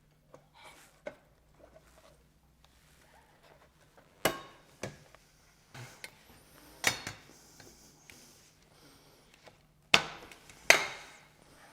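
Sharp knocks and small clicks of roller blind frame parts being fitted and tapped together, with a few hard knocks in the second half, the loudest two near the end.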